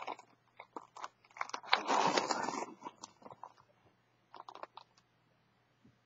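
Latex balloons handled and rummaged in a cardboard box: irregular rustling and rubbing with scattered clicks, busiest in the first half, then a few light clicks about four and a half seconds in.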